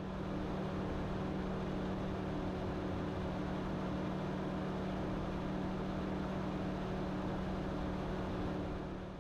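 A steady mechanical drone, a low even hum over a hiss with no change in pitch, fading out near the end.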